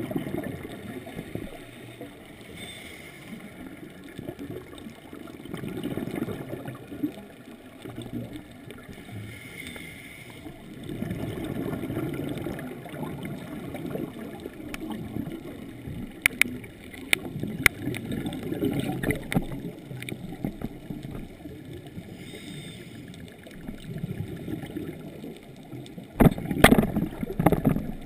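Scuba regulator breathing heard underwater: bubbles rumble out on each exhale every few seconds. A few sharp clicks come in the second half, and a louder burst of bubbles with clicks comes near the end.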